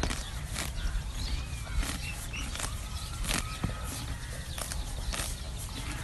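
A horse cropping grass up close: irregular sharp tearing and chewing clicks, about two a second, over a steady low rumble.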